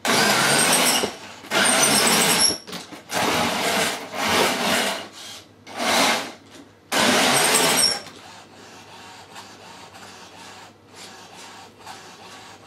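Small electric motors of a homemade radio-controlled puppet whirring in about five bursts, some with a high whine, as the puppet drives and turns; after about eight seconds they fall to a faint hum.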